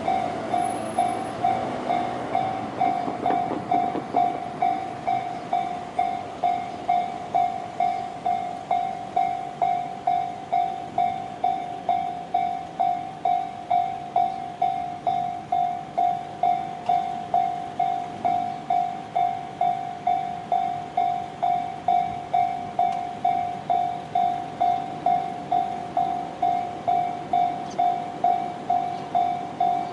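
Electronic level-crossing bell of the Tobu 'sound C' type ringing steadily, about two strikes a second on one bright pitch.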